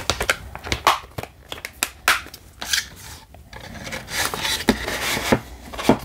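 A plastic Blu-ray case handled and turned over in the hands: a run of small clicks and knocks of plastic, with a longer rubbing, sliding sound from about four seconds in.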